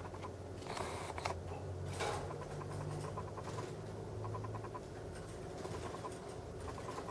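Caged canaries, one bathing in a cage bath: brief splashing rustles about one and two seconds in, among short runs of soft ticking notes.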